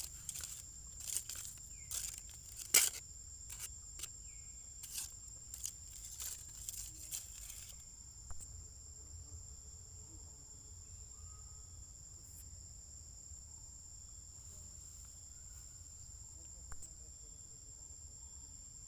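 Steady high-pitched insect chorus, with a run of short rustles and clicks over the first half, the loudest about three seconds in, then only the insects.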